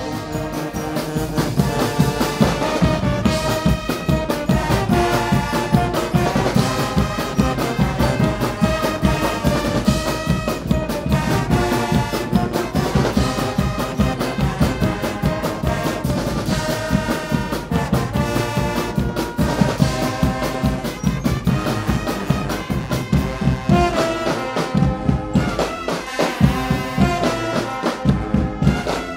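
Guggenmusik band playing a tune: trumpets, trombones and sousaphones over a drum kit with cymbals, loud and with a steady beat. The bass briefly drops out near the end before the band comes back in.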